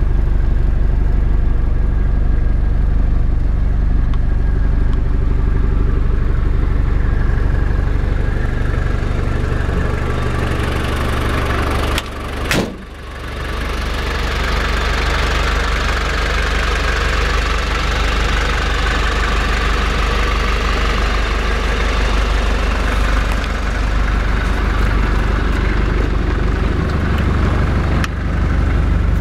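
Toyota Land Cruiser diesel engine idling steadily, with a sharp knock about twelve seconds in.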